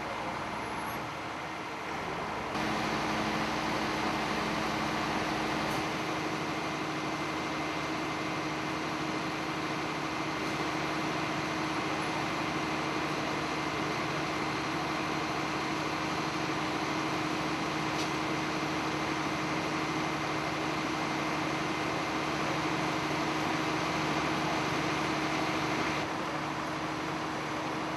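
Steady machine hum over an even rushing noise, like an engine idling, with the background changing abruptly about two and a half seconds in and again near the end.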